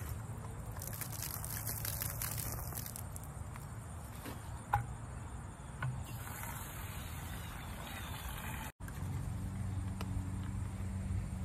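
A steady low mechanical hum with faint outdoor ambience, and two light clicks about halfway through.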